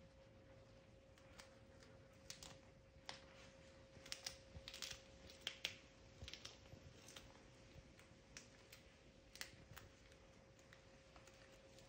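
A cat chewing a raw red snapper tail, faint irregular crunches and clicks of teeth on fish bone and fin, thickest a few seconds in. A faint steady hum runs underneath.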